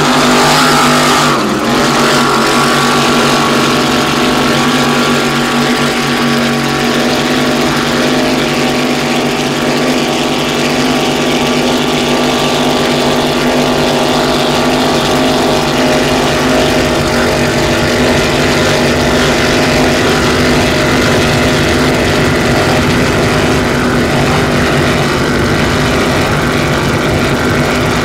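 Loud, steady engine drone with several held tones over a dense mechanical roar.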